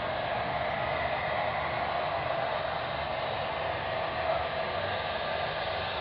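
A steady, unbroken droning noise, the unexplained 'strange sound in the sky', holding a band in the middle range with hiss above it and no change in level.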